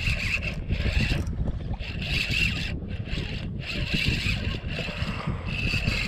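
Spinning reel cranked in short spells while a hooked fish is reeled in, its gears whirring and stopping several times, over wind rumbling on the microphone.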